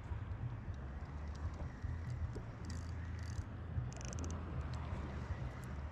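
Wind rumbling on the microphone, with a few short clusters of high ticks near the middle.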